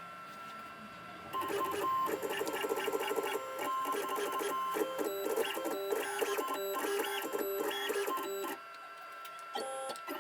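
CNC milling machine's axis drive motors making a series of short stepped moves: a whirring buzz that changes pitch with each move. It starts about a second and a half in and stops near the end, over a steady high whine.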